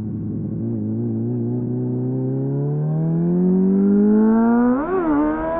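2001 Suzuki GSF 600 Bandit's inline-four engine through an aftermarket slip-on exhaust (a clone of an SC-Project CR-T with a home-made dB killer), heard from the rider's seat. It holds a steady note for a couple of seconds, then pulls up with a steadily rising pitch, with a brief quick blip up and down near the end.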